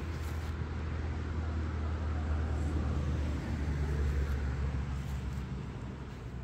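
Electric drive motor and geared drivetrain of a scale RC crawler truck whirring as it drives slowly over grass, a steady low hum that shifts in pitch about three and a half seconds in.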